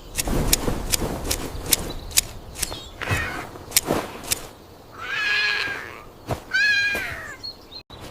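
A run of sharp, evenly spaced clicks, about two to three a second, then a cat meows twice, each call under a second long.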